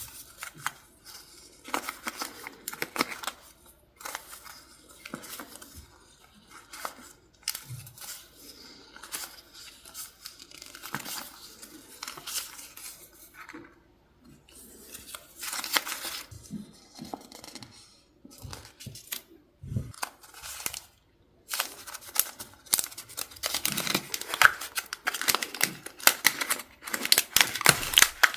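Paper and stickers handled close up: irregular rustling and tearing with crinkles and small taps, busier and louder toward the end.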